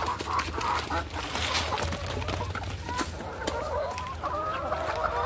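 A flock of hens clucking, many short overlapping calls, with a few scattered sharp clicks.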